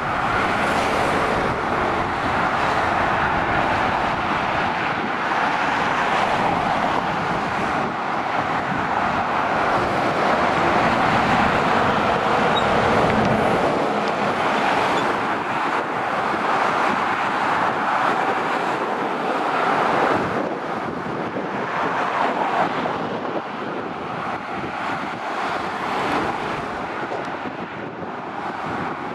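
Motorway traffic: lorries and cars passing below on a dual carriageway, a continuous tyre and engine noise that swells and eases as vehicles go by.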